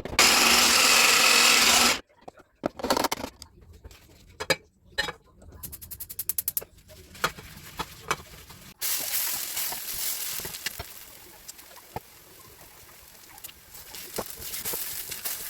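Kitchen cooking sounds: a loud burst of noise for about two seconds, then scattered knocks and a quick run of rapid strokes, as when a utensil works a batter in a bowl. About nine seconds in, a steady hiss with small crackles begins, like batter frying in a hot pan.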